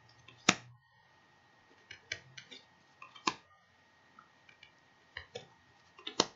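Animal Totem Tarot cards handled one at a time in a flip through: a string of sharp card snaps and light flicks of stiff card stock. The loudest snap comes about half a second in and another just after three seconds, with smaller clusters around two seconds and between five and six seconds.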